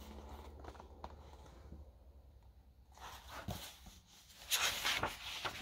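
Quiet room with a low steady hum, and soft rustling and handling noises in the second half as the hardback picture book is moved.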